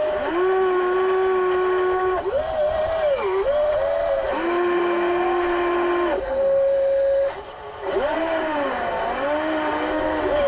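Radio-controlled Volvo EC160E model excavator working its arm and bucket, its drive motor whining continuously. The pitch rises and falls as the controls move and twice holds level for about two seconds, with a brief drop about three quarters of the way through.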